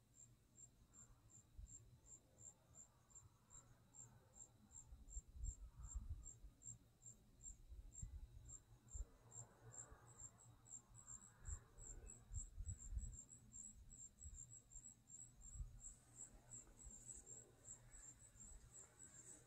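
Faint crickets chirping in a steady, high-pitched rhythm, about two chirps a second, crowding closer together from about halfway through as more chirps overlap. Faint low thumps sound now and then underneath.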